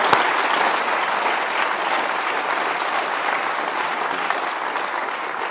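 Audience applauding: dense, steady clapping that thins slightly near the end.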